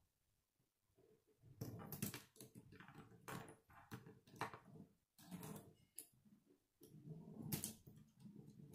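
K'nex plastic rods and connectors being handled and snapped together: an irregular run of clicks and clacks that starts about a second and a half in.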